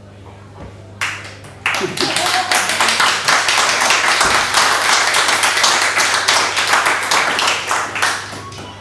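A small audience applauding at the end of a talk. The clapping starts about a second in, swells to full strength, holds, and dies away near the end.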